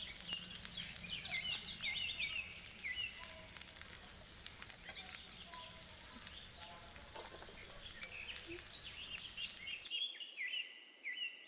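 Chopped onions sizzling and crackling in hot oil with mustard seeds and curry leaves in a tiny iron kadai, with birds chirping over it. About ten seconds in, the sizzling cuts off suddenly and only the bird chirps are left.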